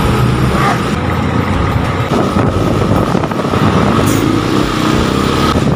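Motorcycle riding in city traffic heard from a helmet chin-mounted camera: the engine running under a steady rush of wind and road noise, with a rising tone about three seconds in.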